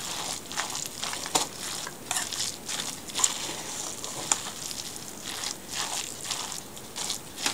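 A moist raw minced cod-and-vegetable mixture being mixed in a stainless steel bowl: short wet strokes, unevenly spaced, about one to two a second.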